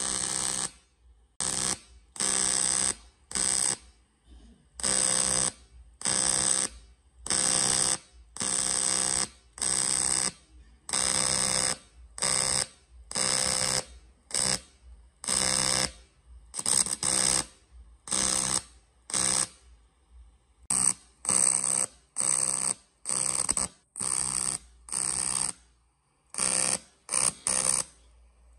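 TIG welder arc on aluminium buzzing in a long string of short bursts, each under a second, about one to two a second. This is the sound of the arc being struck and stopped over and over while filler rod is dabbed into a crack in a cast aluminium gearbox casing.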